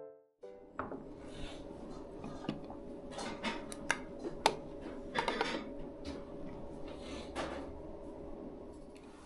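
Tableware clinking and knocking as the lid is lifted off a red lidded rice pot and the dishes on the table are handled: scattered light clicks, with the sharpest knocks around the middle, over a steady low hum.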